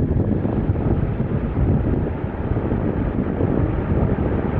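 Jet engines of a four-engine Airbus A380 rumbling as it moves down the runway, a steady deep roar, with wind buffeting the microphone.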